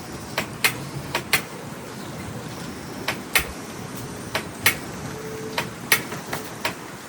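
A dozen or so sharp, irregularly spaced clicks and knocks over a steady low background rumble.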